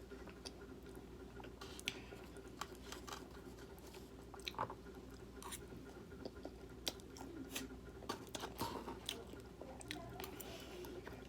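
Close-miked eating: chewing with irregular small wet clicks and smacks, over a faint steady hum.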